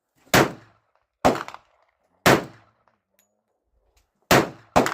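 Five pistol shots from a .45 ACP Glock 41: three about a second apart, a pause, then two quick shots near the end.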